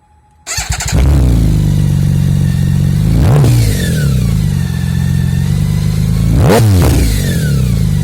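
BMW K1600's inline-six engine breathing through Max Torque aftermarket silencers with the dB killers removed, firing up about half a second in and settling into a loud idle. It is blipped twice, the revs rising and falling quickly about three seconds in and again near six and a half seconds.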